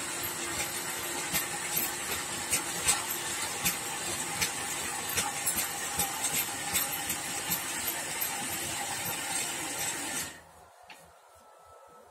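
Homemade electric Krot cultivator with Tselina tiller tines running and churning hard, compacted soil: a steady motor hum with a high whine, with frequent irregular knocks and clicks from the tines striking clods. The motor is switched off about ten seconds in and the sound stops abruptly.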